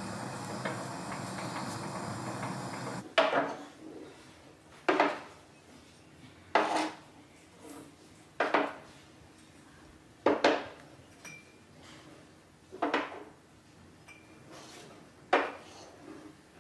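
A steady hum that cuts off about three seconds in, then sharp clinks of ceramic pottery being set down one piece at a time, seven of them about two seconds apart.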